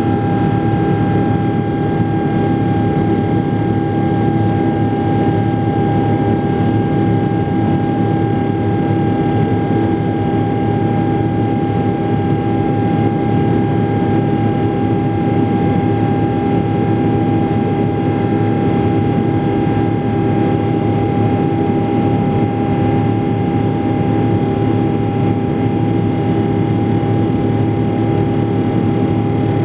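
Boeing 777-300 jet engines and airflow heard from inside the passenger cabin in flight after takeoff: a steady, loud drone with a constant high tone over a low hum.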